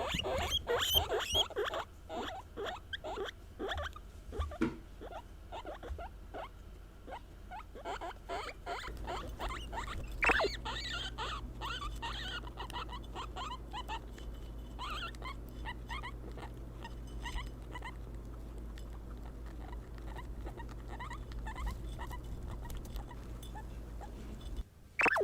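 Guinea pigs calling in a string of short squeaks that slide in pitch, thick at first and then more scattered, with one louder call about ten seconds in. A low steady hum comes in about nine seconds in.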